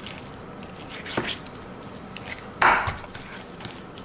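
Kitchen knife cutting raw chicken breast into small pieces, the blade knocking on a round wooden cutting board a few separate times, the loudest knock about two and a half seconds in.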